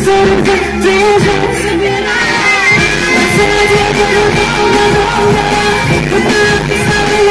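Loud live pop music with a singing voice, played through a concert sound system.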